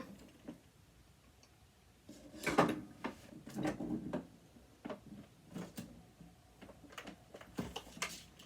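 Clicks, knocks and a short rattle of small metal and plastic parts being handled and worked with a tool while taking apart a sewing machine, starting about two seconds in after a quiet start, with the loudest clatter early on and scattered single clicks after.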